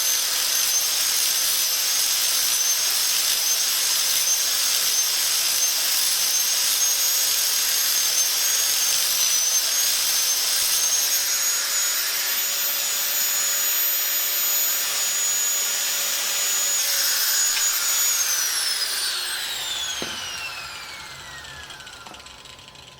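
Handheld electric power tool running at a steady high-pitched whine. About eighteen seconds in it is switched off and spins down, its pitch falling steadily as it fades.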